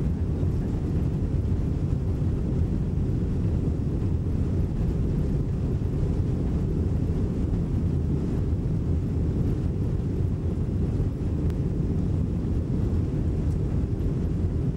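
Cabin noise of a fully loaded Boeing 747-200 on its takeoff roll, heard from the rear of the lower deck: the four engines at takeoff power make a steady, deep rumble.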